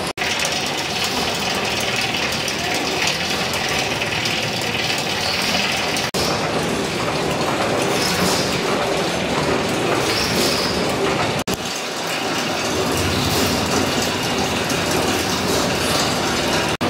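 Old pumping-station machinery running steadily: the 1914 Richard Hornsby twin-cylinder Stockport gas engine and the pumping gear it drives, a continuous mechanical clatter and rumble. The sound breaks off for an instant twice, at about six and eleven and a half seconds in.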